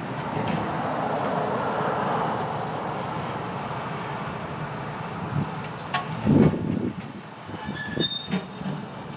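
Grapple truck's engine and hydraulic boom running while new concrete crossties are set down into the steel truck bed. There are several heavy thuds, the loudest a little past halfway, then a ringing metal clank near the end.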